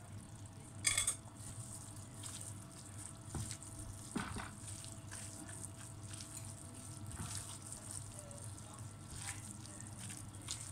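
A hand squeezing and kneading raw minced meat in a ceramic bowl: soft wet squishing, with a brief ringing clink against the bowl about a second in and a lighter knock near the middle.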